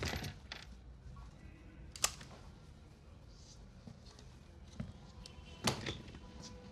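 Quiet film soundtrack: a low rumble with a few sharp knocks, one right at the start, one about two seconds in and the loudest near six seconds in.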